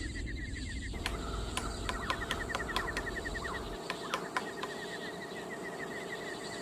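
Birds calling outdoors: a fast, even run of short repeated chirps, with scattered sharp clicks over a steady background hiss.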